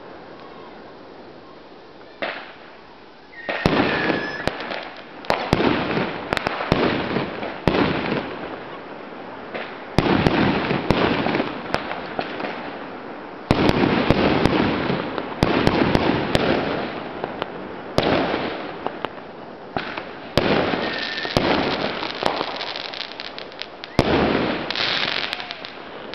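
Aerial fireworks bursting in the sky: after a couple of quieter seconds, a first sharp bang, then a rapid run of bangs one after another, each trailing off over a second or so.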